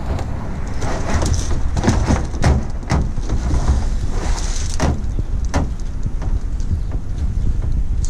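Wind buffeting the microphone as a low rumble, with scattered knocks, scrapes and crackles as a plastic trash can and its plastic bag liner are handled and tipped over.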